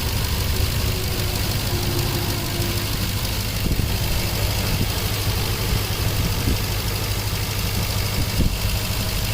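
Nissan 5.6 L V8 engine idling steadily. It has a cylinder 8 misfire (code P0308), traced to a faulty ignition coil or boot on the rear cylinder.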